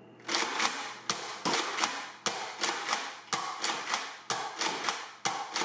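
Nerf Mega blaster being shot again and again: a quick run of sharp plastic clacks, roughly three a second.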